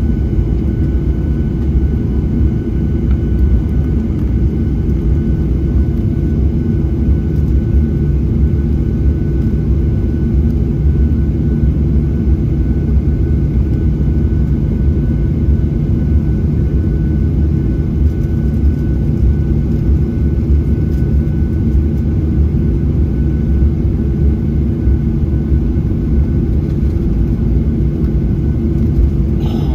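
Boeing 737-800's CFM56-7B jet engines running as the airliner rolls on the runway for departure, heard inside the cabin: a steady, loud, deep rumble with a faint steady whine above it.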